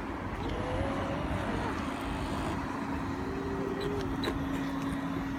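Radio-controlled model boat's brushless electric motor whining, its pitch rising and falling with the throttle, over a steady hum that starts about a second in.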